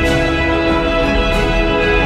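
Background music: held, layered chords with a soft high accent about two-thirds of the way through.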